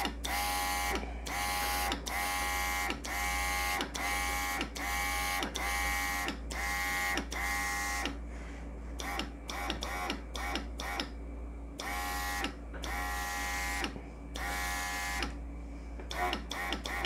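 NEOECO cordless mini airbrush compressor and airbrush spraying in short pulses, about one a second: each press brings a steady motor whine with a hiss of air, then stops. Around the middle the pulses turn short and quick, then longer again. The spray is sputtering a little, which the owner puts down to too little pressure.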